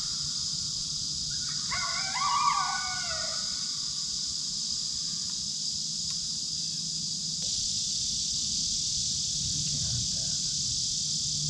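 An electronic predator call sounds one wavering, gliding animal call about two seconds in, rising and then falling in pitch over about a second and a half. A steady high drone of insects runs underneath.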